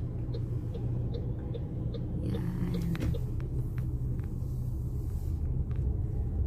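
Car interior road noise: a low steady rumble of the engine and tyres as the car drives slowly and turns. Light ticks repeat evenly about two or three times a second.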